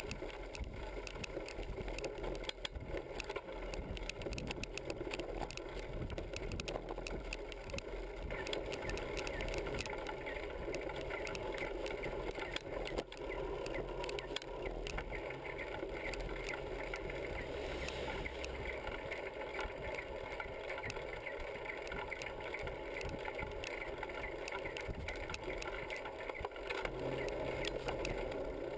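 Bicycle riding along a road, heard from a camera mounted on the bike: steady tyre and wind noise with constant small clicks and rattles from the metal rack and mount over bumps.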